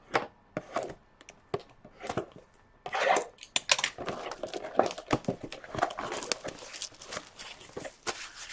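Crinkling and tearing of the packaging as a sealed box of trading cards is opened, with quick rustles and small clicks throughout, busiest from about three seconds in.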